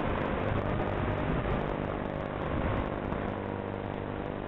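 Eachine Wizard X220 racing quadcopter in flight: its brushless motors and propellers buzz with a rushing hiss, and the pitch shifts as the throttle changes.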